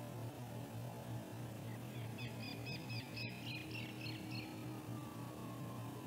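A small bird's quick run of short, high chirps lasting about two seconds, with one sharp click partway through, over a steady low hum.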